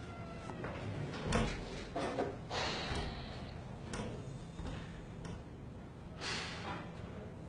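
Scattered knocks and bangs, about half a dozen, fairly faint and irregularly spaced, like doors and kitchen objects being shut and put down.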